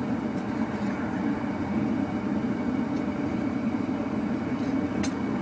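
Gas forge burner running steadily, with one sharp metallic click about five seconds in.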